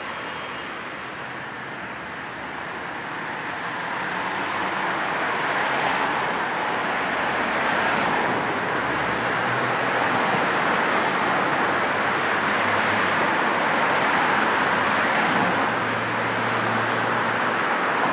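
Road traffic ambience: a steady wash of passing car engines and tyre noise, building up over the first few seconds as vehicles come closer, then holding.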